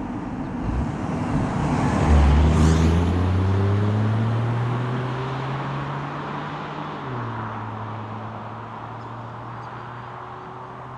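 2020 BMW 118i's 1.5-litre turbo three-cylinder accelerating past, loudest about two seconds in as it goes by. Its note then climbs as it pulls away, drops sharply at a gearshift about seven seconds in, and climbs again while fading into the distance.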